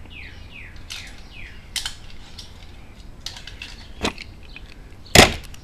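Die-cast toy cars clicking and clattering as they are handled in a box, a few sharp clicks with the loudest clatter near the end. Behind them, a bird gives a quick series of falling chirps in the first couple of seconds.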